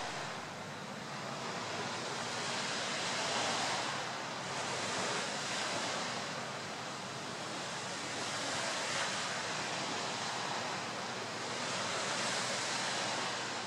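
Sea surf washing steadily, rising and falling every few seconds, with some wind noise.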